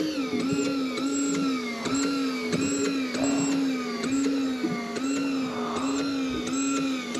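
Fishing reel being cranked steadily, its gears giving a pitched whine that rises and falls about twice a second.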